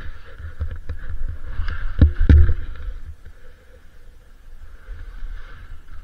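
Ogso Spencer skis sliding through snow with wind buffeting the microphone, with several sharp knocks in the first couple of seconds, the loudest just after two seconds; it grows quieter in the second half.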